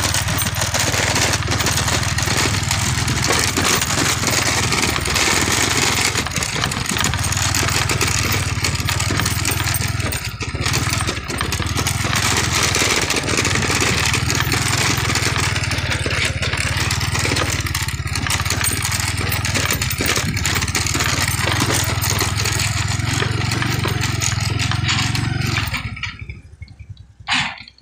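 Honda motorcycle engine running steadily as the bike rides along a rough dirt track. Near the end the engine noise drops away suddenly, leaving a few short noisy bursts.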